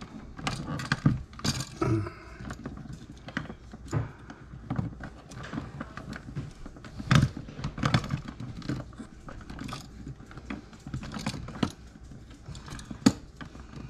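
Irregular small clicks, taps and rattles of hands working wiring and hardware back into a wall light-switch box, with a sharper knock about seven seconds in and another near the end.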